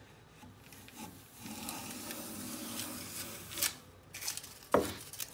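Lie-Nielsen No. 62 low angle jack plane taking a shaving along the edge of a 2x4, a rasping stroke of about two seconds that ends in a click. A sharp knock follows near the end as the plane is set down on the wooden benchtop.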